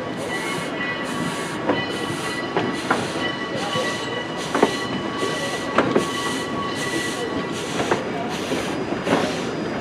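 Railroad cars of a slow-moving excursion train, a wooden caboose and an open-air coach, rolling past: wheels click over the rail joints about once a second, with a faint steady squeal. A rhythmic hiss pulses about twice a second behind them.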